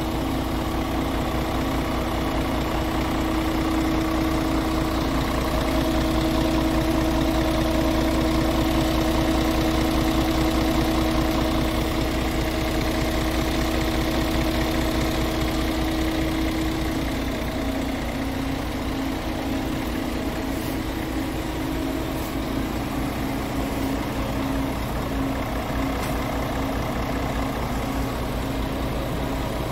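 Scania R tractor unit's engine idling steadily, a low even hum with a constant whine over it; a little past halfway the tone of the hum shifts slightly.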